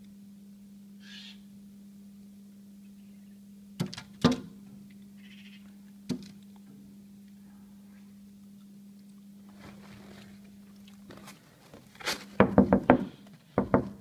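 A pigeon striking a window pane: a few separate knocks, then a rapid flurry of loud thumps near the end. A steady low hum runs underneath.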